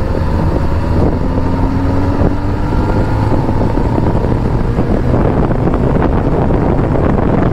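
Kawasaki ZX-10R inline-four engine pulling in sixth gear as the bike accelerates at highway speed, its note rising slowly. Heavy wind rush on the microphone runs throughout.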